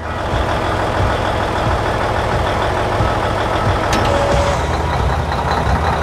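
Combine harvester engine running steadily with a low, continuous hum, as a vehicle sound effect.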